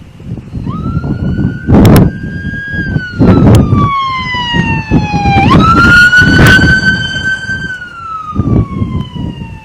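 Outdoor tornado warning siren wailing in slow cycles: it rises, holds, then sinks over several seconds and rises again about halfway through. Wind gusts buffet the microphone in loud bursts over it.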